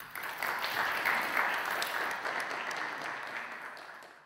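Audience applauding, starting suddenly and fading out near the end before cutting off.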